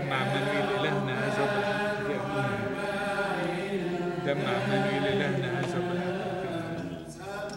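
Men's voices chanting a Coptic Orthodox hymn in unison during Holy Communion, with long drawn-out notes.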